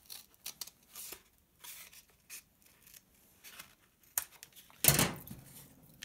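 Scissors snipping a flattened cardboard toilet paper tube, a quick run of short cuts at first, then lighter handling of the cardboard, with one louder thump near the end.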